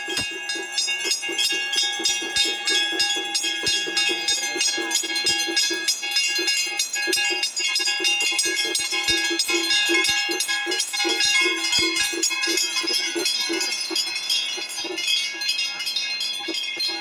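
Temple bells rung fast and without a break during a puja, their ringing tones held steady, over the voices of a crowd.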